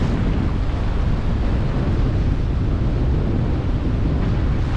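Strong wind buffeting the microphone in a steady low rumble, over the wash of sea waves against a concrete jetty.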